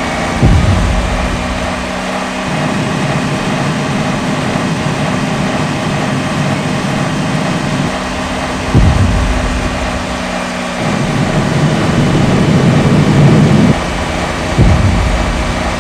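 Burning well blowout: a steady rushing rumble of the fire jet, with a low engine-like hum under it. Heavier low rumbling sets in suddenly about a second in, again about nine seconds in, and near the end.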